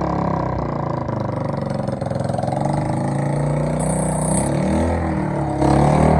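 Motorcycle engine running, its pitch dipping and rising once about two-thirds of the way through, and getting louder near the end.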